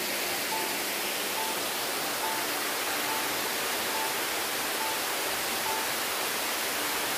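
Steady rush of a shallow creek flowing over rocks, an even hiss with no breaks. A faint short high note repeats about once a second behind it.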